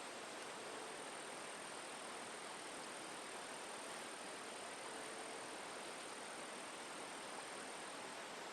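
Steady outdoor ambience: a constant, even hiss of running stream water, with a thin, high, unbroken note from an insect.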